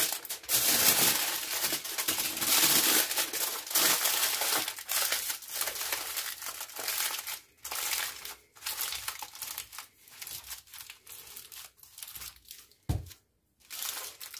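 Aluminium foil being gathered and crumpled by hand into a parcel: dense crinkling, loudest in the first few seconds, then thinning to sparser crinkles. A single low thump comes near the end.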